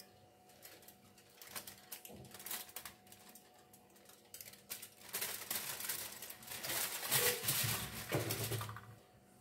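Aluminium foil crinkling and crackling as leftover marinade is poured and scraped off it onto fish on a wire rack. Scattered light taps and clicks come first, then a denser, louder crinkling over the last few seconds.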